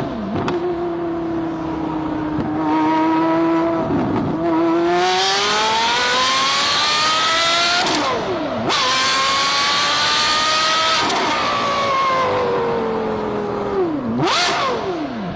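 Porsche Carrera GT's 5.7-litre V10 engine accelerating hard, its pitch climbing through the revs with an upshift about eight seconds in, then falling away as it comes off the throttle, with a quick sharp rev near the end.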